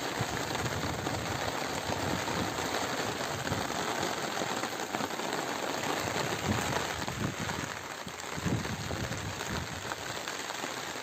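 Steady rain falling on a rooftop terrace garden, an even hiss of drops on leaves and plastic pots.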